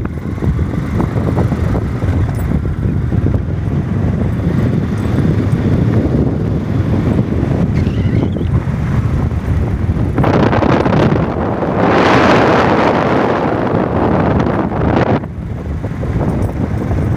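Wind buffeting the microphone over the steady low rumble of a moving vehicle. A louder rushing noise swells for about five seconds past the middle, then drops away.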